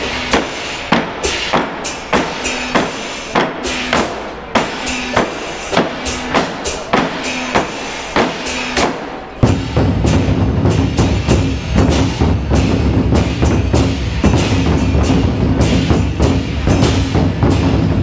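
Ensemble of large Chinese barrel drums (tanggu) played with sticks. For the first half the strokes are light and sharp, about two a second, with little boom; about nine seconds in, heavy booming strokes on the drumheads come in and the playing turns dense.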